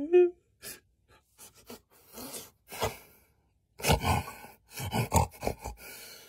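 A man's voice: a drawn-out moan ends just at the start, then comes a string of breathy gasps, hisses and grunts, loudest about four to five and a half seconds in.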